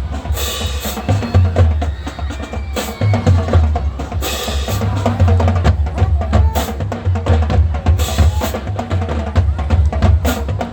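High school marching band drum line playing its percussion feature: rapid snare patterns over pounding bass drums, with loud full-line accents near the start, around four seconds in and again around eight seconds in.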